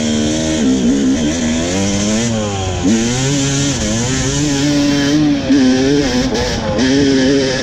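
Yamaha YZ250 dirt bike engine under hard acceleration, its pitch climbing and dropping again and again with the throttle and gear changes.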